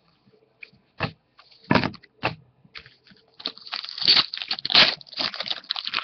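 Trading-card pack wrappers crinkling and tearing as cards are handled: irregular crackles, a few scattered ones at first, then a busy run from about halfway in.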